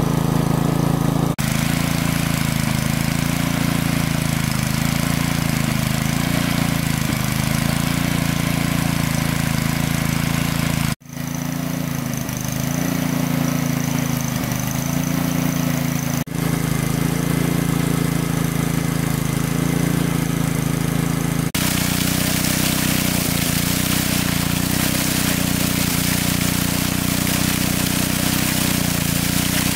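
A motor-driven water pump's engine running steadily, broken by a few abrupt cuts.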